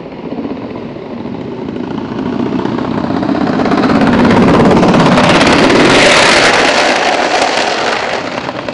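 Longboard wheels rolling over rough asphalt, a gritty rumble that swells as the board passes close by about six seconds in, then fades.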